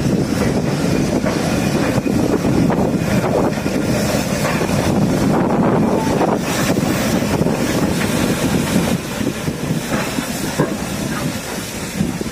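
Steam train passing slowly at close range: carriage wheels clacking over the rail joints with the hiss of the steam locomotive, easing a little near the end as the train draws away.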